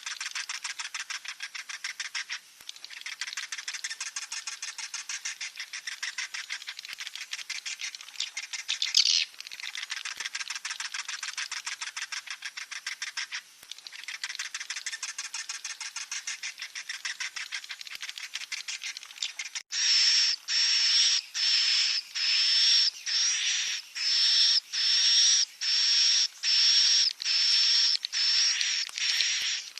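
Swiftlet chicks calling: a dense, continuous chittering, then after an abrupt change about two-thirds of the way through, a run of separate high-pitched calls about once a second.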